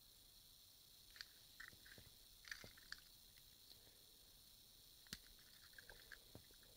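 Faint scattered clicks and small handling noises from a push-along toy train engine and its rocket wagon being turned over in the hands and hooked together, the sharpest click about five seconds in.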